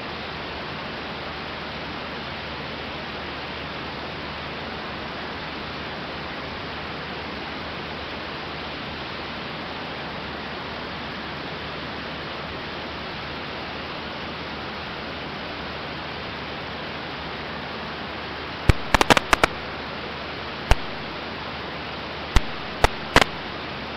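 Steady hiss of in-flight cockpit noise through the intercom audio feed, with the faint low hum of the Aeronca Champ's 65 hp Continental engine underneath. Clusters of sharp clicks come in near the end.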